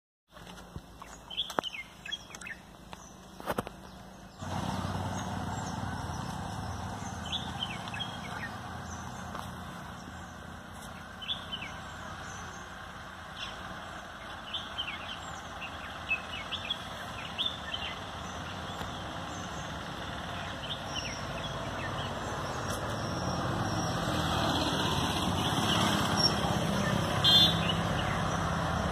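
A steady low rumble that starts suddenly about four seconds in and slowly grows louder, with short bird chirps scattered through it. A few sharp clicks come in the first seconds.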